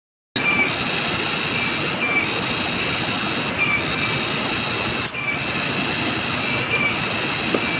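Insects droning in a steady, high-pitched chorus of several even tones that dips in level about every one and a half seconds, with a single sharp click about five seconds in.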